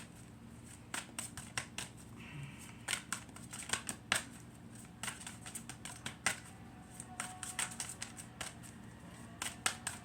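A deck of oracle cards being shuffled by hand: quick, irregular flicks and taps of the cards, often in short clusters.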